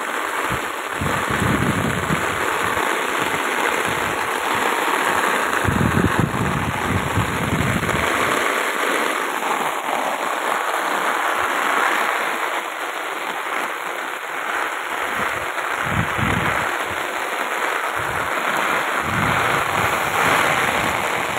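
Heavy monsoon rain pouring down, a steady dense hiss of raindrops splashing on a concrete terrace and a flooded street. Low rumbles come and go several times.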